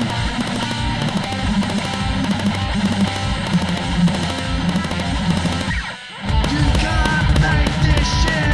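Guitar-driven rock band recording, with a steady drum beat under the guitars. About six seconds in the music drops out briefly, then comes back louder with sliding high notes.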